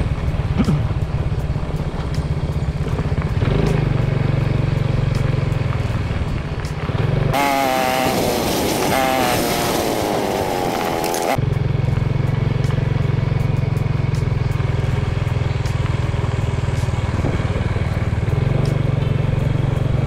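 Motorcycle engine running steadily while riding. About seven seconds in it cuts off abruptly for about four seconds, replaced by a wavering pitched sound, then the engine comes back.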